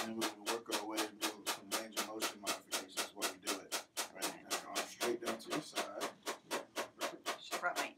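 Handheld shockwave therapy applicator firing its pulses into the shoulder: rapid, even clicking at a little under five shots a second, delivered to break up a calcium deposit in the rotator cuff.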